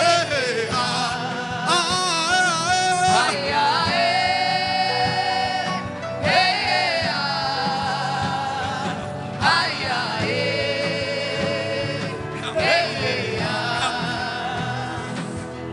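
Gospel worship music: a voice sings long, wavering held phrases over a steady instrumental backing.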